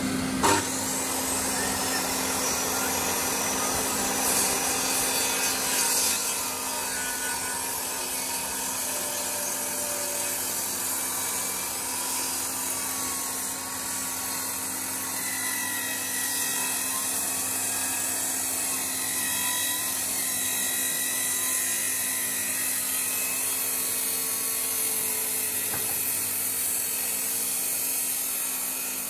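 Electric angle grinder running steadily against wood: a constant high whine over a grinding hiss, with a short sharp knock about half a second in.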